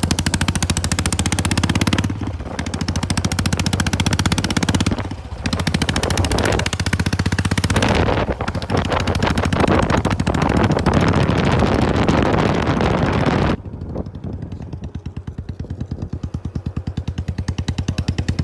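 Royal Enfield Bullet single-cylinder motorcycle running with its silencer removed, its open exhaust a loud, rapid stream of pops that dips briefly a few times. About thirteen and a half seconds in, it drops to a quieter, slower, evenly spaced beat.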